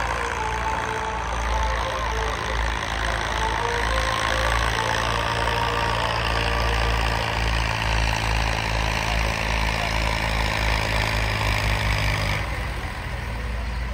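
Massey Ferguson tractor's diesel engine running steadily while pulling an implement across a tilled field. About twelve seconds in the sound turns duller.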